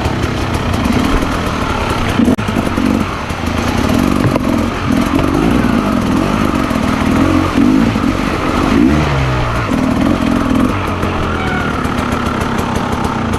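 Motorcycle engine running under way on a dirt trail, its pitch rising and falling as the throttle changes, with a falling drop in revs about nine seconds in.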